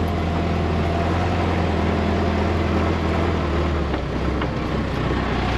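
Heavy farm machine's diesel engine running steadily, its note dropping lower about four seconds in as it slows down.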